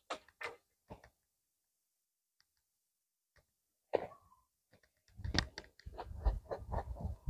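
Crackling rustles of a plastic sack being handled and lifted: a few short crackles, a pause, one sharp loud rustle about four seconds in, then continuous rustling from about five seconds on.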